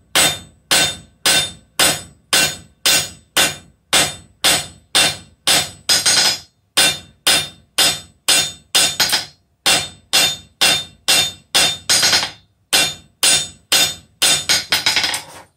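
Blacksmith's hand hammer striking a red-hot steel bar on the anvil in a steady rhythm of about three blows a second, flattening and spreading the end into a leaf. Each blow has a short metallic ring.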